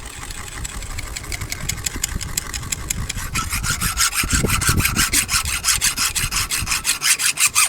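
Round hand file rasping back and forth inside a washer's hole, held in pliers, to enlarge it. The strokes come in a quick, even rhythm and grow louder and faster about halfway through.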